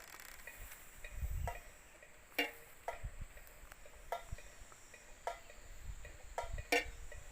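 Wind-driven klencer bird scarer made of PVC pipe knocking irregularly, about two clacks a second, each ringing briefly. Wind rumbles on the microphone now and then.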